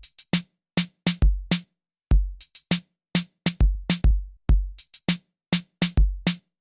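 A sparse drum-machine beat with nothing else playing: long, deep bass-drum hits and short, sharp higher hits, with silence between them.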